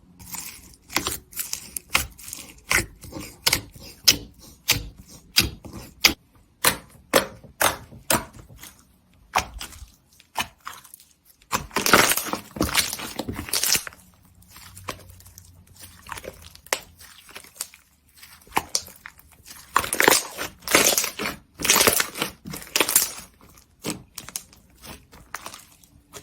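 Slime being pressed and worked by hand, giving a run of sharp crackling pops, one or two a second at first, then denser crackling twice later on.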